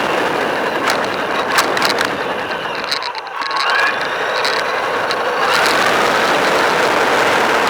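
RC car driving over rough ground: a steady scraping rush from its tyres and drivetrain, with scattered clicks. It dips about three seconds in and then picks up again with a faint gliding whine.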